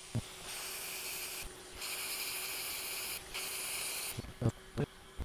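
Hakko FR810B hot air rework station blowing a steady hiss of hot air onto a tiny chip held with tweezers, reflowing the solder to seat a replacement power multiplexer chip on a circuit board. The hiss starts about half a second in, dips twice and stops about four seconds in, followed by a few soft knocks.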